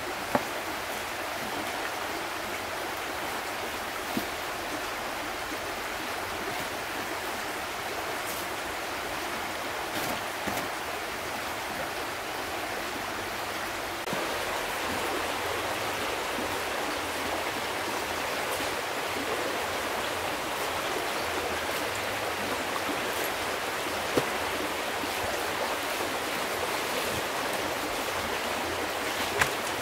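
Shallow forest stream flowing steadily over its bed, a little louder from about halfway. A few sharp knocks stand out now and then.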